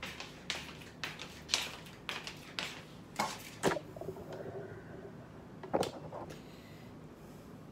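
Short light knocks and clatter about twice a second for the first half, then a single louder bump near six seconds in as the phone recording is picked up and moved.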